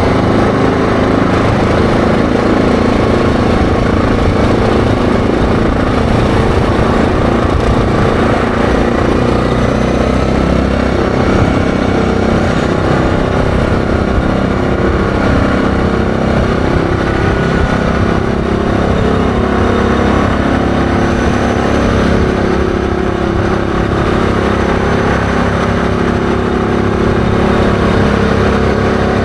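ATV engine running steadily at road speed, heard from the rider's seat.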